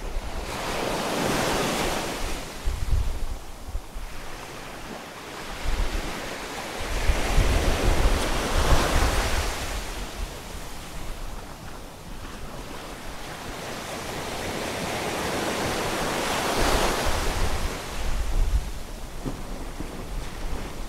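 Sea waves breaking and washing against breakwater rocks, swelling and ebbing in big surges about every seven to eight seconds. Strong wind buffets the microphone with a low rumble.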